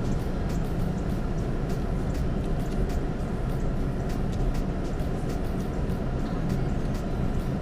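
Car running, heard from inside the cabin: a steady low rumble of engine and road noise, with a few faint clicks.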